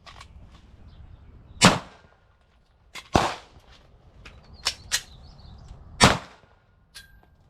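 Three loud gunshots, the first two about a second and a half apart and the third about three seconds later, fired in a timed one-round, reload, one-round drill. Smaller sharp clicks fall between the shots.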